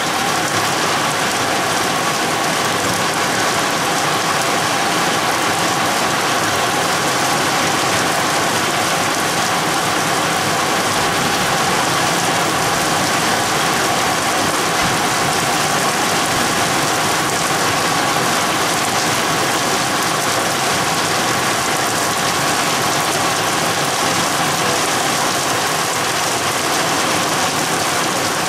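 Heavy rain pouring down in a thunderstorm cell: a loud, steady, even hiss of rain on the ground.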